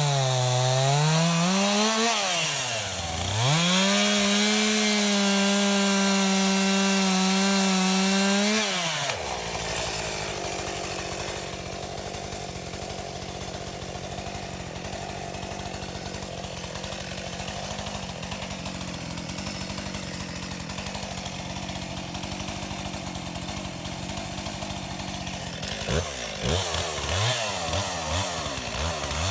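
Chainsaw running at full throttle on a tree-felling cut, dipping briefly about three seconds in. At about nine seconds it drops to idle and idles steadily. Near the end the throttle is blipped several times and the saw revs back up to full speed.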